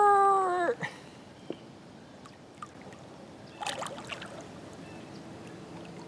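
Water rushing and lapping around a small homemade PVC boat as it turns hard under its electric trolling motor. A short drawn-out voice-like sound comes at the start, and a brief higher sound about three and a half seconds in.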